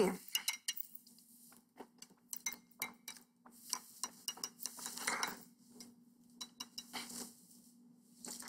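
Juice being sucked through straws from glass jar mugs, in short noisy slurps, with many small clicks and clinks of glass. A faint steady low hum runs underneath.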